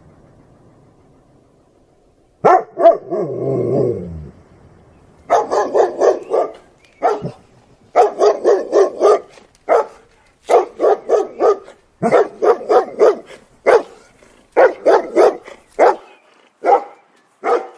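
Angry dog barking fiercely in quick runs of three to five loud barks, after about two seconds of quiet; early on one longer call slides down in pitch between barks.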